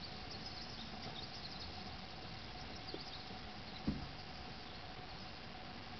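Quiet ambience on still water: a faint steady hiss and hum with scattered faint high chirps, and a single soft low thump about four seconds in.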